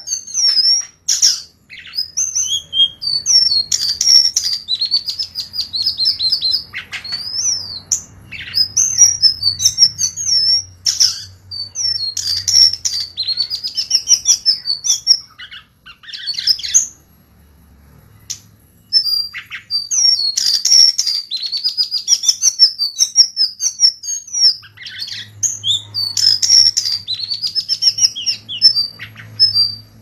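A srikatan songbird singing a fast, varied song of rapid chirps, trills and sliding whistles, pausing for about three seconds just past the middle.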